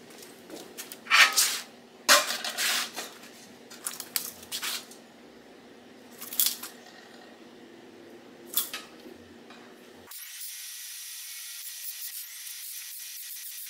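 A few short, loud hissing bursts of work on the steel parts, then about ten seconds in a welding arc starts and crackles steadily as a steel tube is welded onto a sheet-steel tractor grille.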